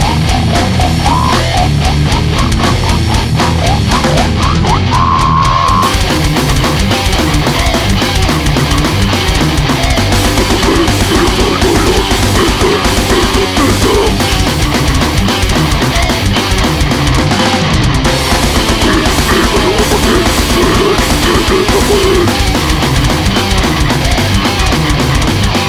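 Extreme metal music: heavily distorted guitars over fast, dense drumming, played loud and without a break. A brief held high note stands out about four to six seconds in.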